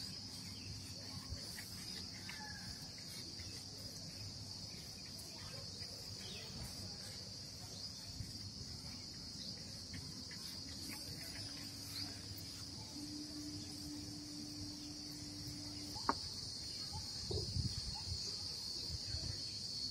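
Steady high-pitched chirring of insects such as crickets or cicadas, with a faint low hum under it. A click comes near the end, followed by a few soft low thuds.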